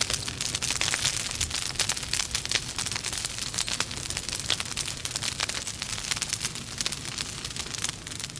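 Wood logs burning in a fireplace: a dense, constant crackling of small sharp pops over a steady hiss.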